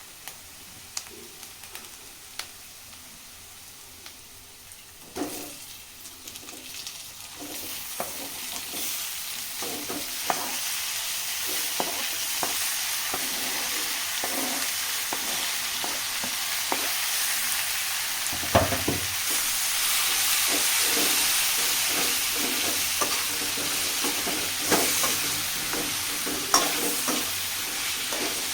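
Food frying in hot oil in a pan, stirred and scraped with a spatula, with many sharp ticks from the utensil. The sizzling is faint at first, then grows much louder from about five seconds in, as if something was added to the pan.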